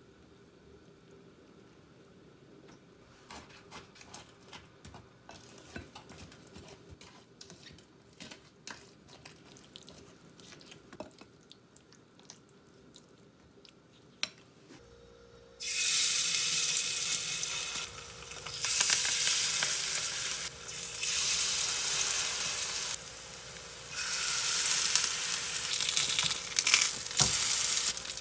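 A wooden spoon stirs thick pancake batter in a glass bowl, with faint scrapes and clicks. About halfway through, small Korean pancakes (jeon) start sizzling loudly in hot oil in a four-section frying pan, a steady sizzle with a couple of short dips.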